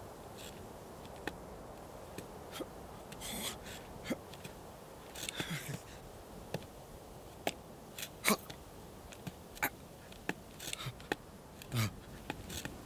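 Sparse clicks and scrapes of a sheep's hooves shifting on rock, with a few short breathy noises, over a faint steady background.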